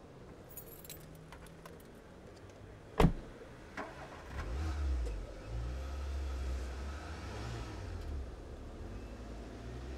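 Keys jingle and click, then a car door shuts with one loud slam about three seconds in. Just over a second later the Volkswagen Golf's engine starts and settles into a steady low idle.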